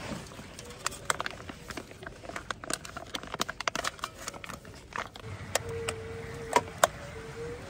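Crinkling of a foil food pouch being opened and handled over stainless-steel camping cups and a pot, with light metal clinks. A faint steady hum comes in about halfway, and two sharper metal clicks sound near the end.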